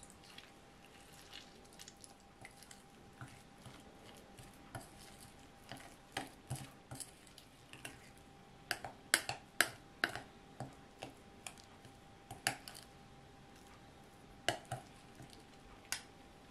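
A metal fork mashing and stirring softened butter and spices in a glass bowl, clinking irregularly against the glass, with a busier run of louder clinks about nine to ten seconds in.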